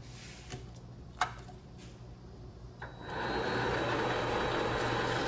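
Vevor MX400 mini lathe starting up: a few light clicks, one sharper about a second in, then about three seconds in the motor and spindle spin up quickly and run steadily.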